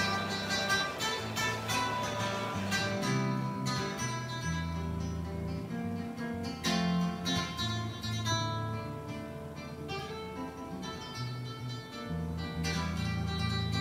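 Background music: an acoustic guitar playing plucked notes.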